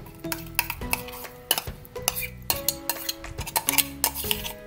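Steel spoon and stainless steel bowls clinking and scraping as a ground vegetable paste is scooped into mashed potato, with many short metallic clicks. Background music with held notes plays underneath.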